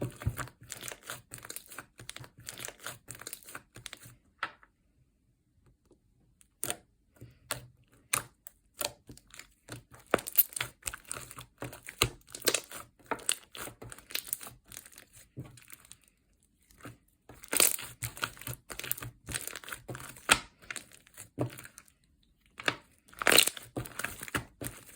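Slime being squeezed and stretched by hand, making runs of sticky crackling and popping clicks, with a couple of short silent pauses.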